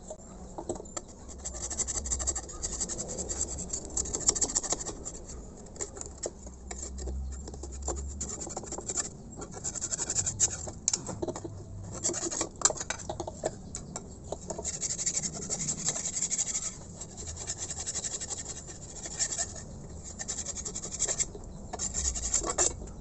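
Scraping and rubbing by hand on an air-compressor head as it is cleaned: an uneven run of scratchy strokes with small clicks.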